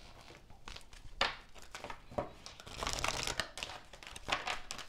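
Tarot cards being handled in the hands: a few light snaps and taps, with a stretch of papery rustling about three seconds in.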